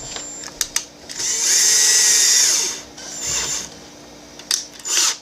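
Small electric screwdriver running in bursts: one whir of about a second and a half that spins up and winds down, then two shorter runs, with a few sharp clicks of the bit against a tiny screw.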